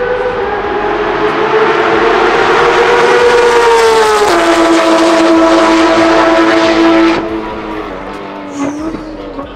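Race car engine at high revs passing on the straight. The note climbs slowly, drops in one step to a lower steady pitch about four seconds in, then cuts off suddenly about seven seconds in.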